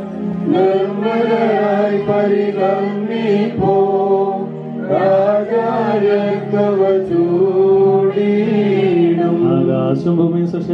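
Male voice singing a Malayalam liturgical chant of the Malankara rite, with long held, ornamented notes over a steady low drone.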